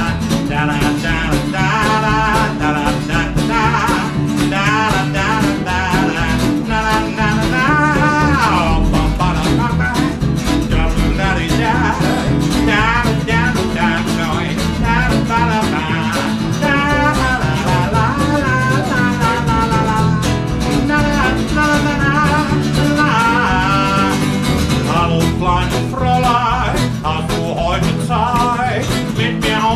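Live blues band's instrumental break: a lead guitar solo of bending, wavering notes over a steady bass and rhythm accompaniment.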